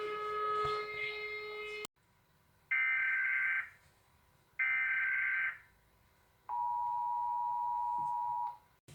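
Emergency Alert System audio. A buzzy tone that has just risen in pitch holds steady and cuts off suddenly about two seconds in. Then come two one-second bursts of high data tones, and finally the two-tone EAS attention signal, held about two seconds.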